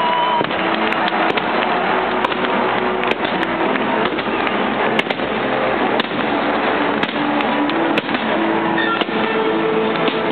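Fireworks crackling and popping in many sharp, irregular snaps over a dense, steady din, with music playing underneath.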